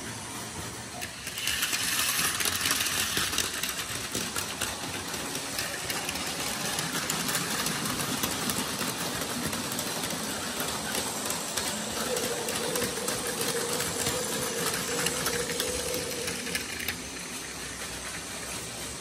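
Plarail Advance toy trains running on plastic track: the whir of their small battery motors and the rattle of wheels, louder from about a second and a half in until near the end as they run close by.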